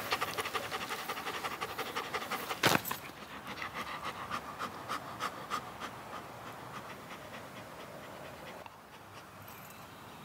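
A German Shepherd panting fast, about five breaths a second, fading away after about six seconds. A single sharp click cuts in about a quarter of the way through.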